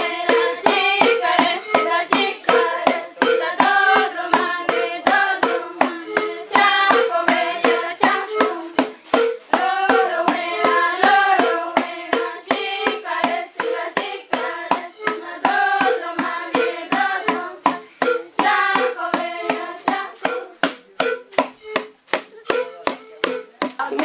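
Singing of a repeated melody over a quick, steady beat of struck or clapped hits: village dance music for the children's circle dance.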